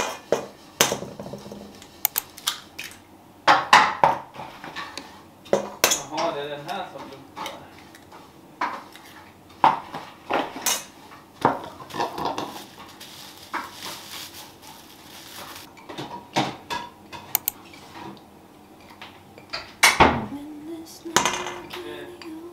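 Kitchen prep sounds at a stainless steel mixing bowl: irregular knocks, clinks and scrapes as an egg is cracked and ingredients are worked in with a plastic spatula. A few of the knocks leave the bowl ringing briefly.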